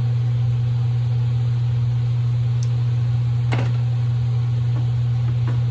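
A steady low hum throughout, with a few light clicks and clinks of hands fitting a fuel line onto a lawn tractor's fuel tank.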